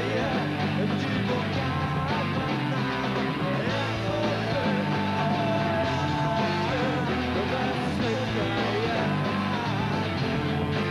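Rock band playing live: electric guitars and drums with singing, and a long held note about halfway through.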